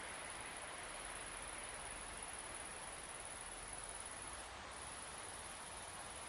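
Steady soft wind over open country with a continuous high-pitched insect chorus, which drops out briefly about four and a half seconds in.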